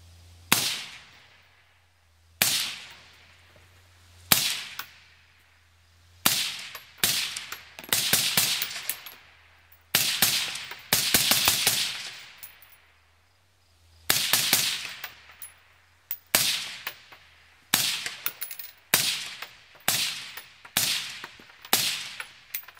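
AR-15 firing 5.56 mm FMJ rounds through a YHM Phantom 7.62 Ti titanium suppressor. About twenty suppressed shots, each a sharp crack with a short ringing tail. They come a second or two apart at first and more quickly in the second half. It sounds a little bit louder than a .22.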